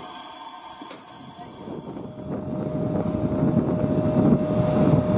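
Steam locomotive 60163 Tornado: a quiet hiss and rattle inside its cab, then, about two seconds in, louder wind buffeting the microphone beside the standing engine, with a thin steady tone over it.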